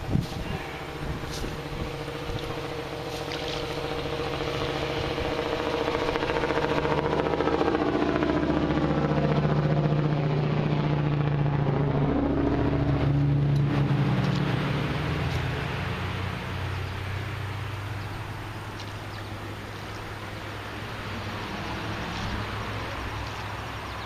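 Engine of a passing motor vehicle, its hum swelling to a peak about ten seconds in and then fading away, with the pitch sliding as it goes by. A sharp knock at the very start.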